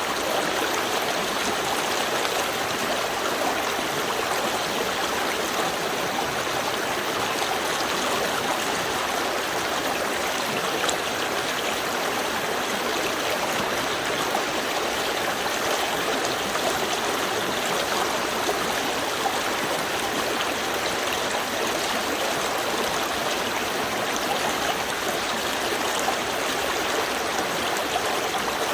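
Small river stream flowing steadily, water running and gurgling over stones, with small splashes and trickles.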